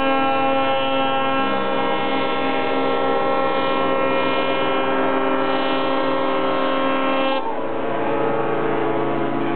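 Several ships' horns sounding together in a ship-horn concert, holding a chord of long steady tones at different pitches. A lower horn joins about a second and a half in, and near the end several horns stop while others keep sounding.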